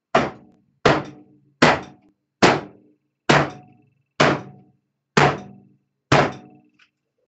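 A wooden loaf mold full of fresh cold process soap batter banged down on a table eight times, about once a second, each knock ringing briefly. The knocks jar trapped air bubbles out of the poured soap.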